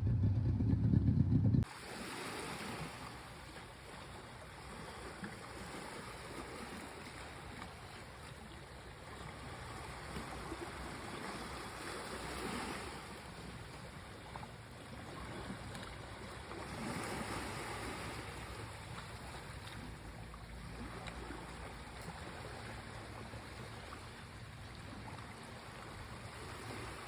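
Sea waves washing onto a shore, a steady surf with a few slow swells in loudness. It is preceded by a loud low rumble that cuts off suddenly about a second and a half in.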